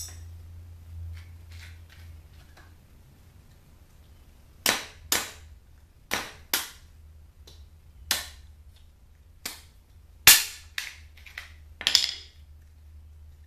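About ten sharp cracking knocks, several in quick pairs, from tools working the cooler's fan motor loose from its mount, over a faint steady low hum.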